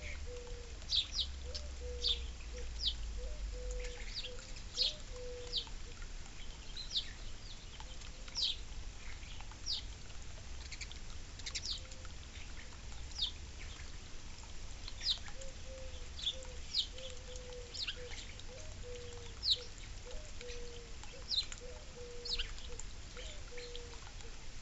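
Small wild birds chirping at a backyard feeder: short, sharp, downward-sweeping chirps, a few each second and irregularly spaced. A fainter, lower run of short notes repeats steadily underneath.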